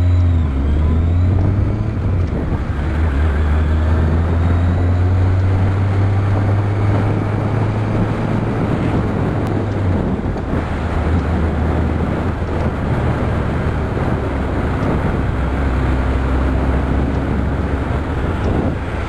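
A vehicle engine running on the move, its note gliding up and down with the throttle, under wind rushing over the microphone.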